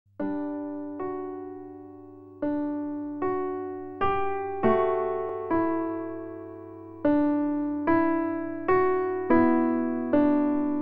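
Background music: a piano playing slow chords, each struck and left to die away, about one a second.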